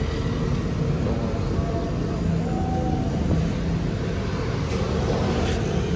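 Steady low rumble of motor vehicles on the street, getting slightly louder toward the end.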